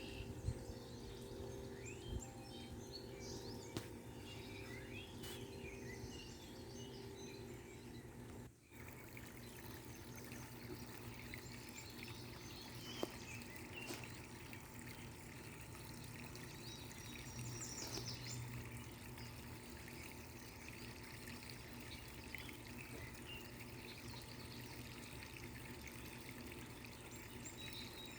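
Water pouring and trickling steadily, as from a small garden waterfall into a pond. Birds chirp during the first few seconds.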